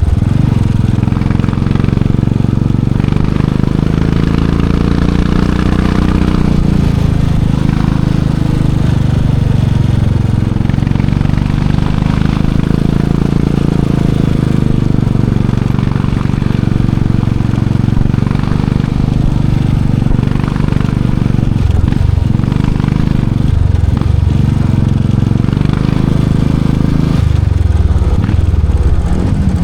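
Royal Enfield Classic 500's single-cylinder engine and exhaust running loud and steady, its note rising and falling gently, with two brief drops in throttle about two-thirds of the way through.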